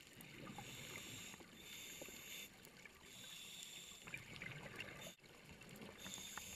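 Faint underwater ambience picked up by a camera in its housing: a low hiss with scattered small clicks and on-and-off higher hissing.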